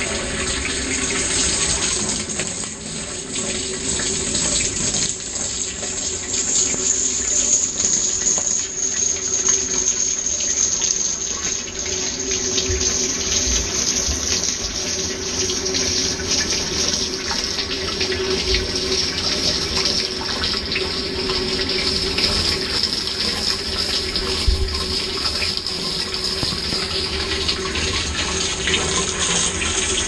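Washing machine tub filling: a stream of water pours in and splashes, heard from inside the tub, with a few dull knocks about halfway through and near the end.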